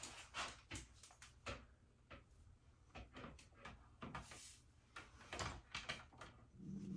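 Irregular faint clicks, knocks and rustles of handling a corded electric hot comb and running it through a wig's hair.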